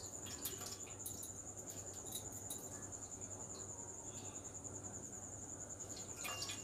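Faint clicks and rustles of hands lifting and squeezing soaked flattened rice out of water in a bowl, under a steady, slightly pulsing high-pitched trill and a low hum.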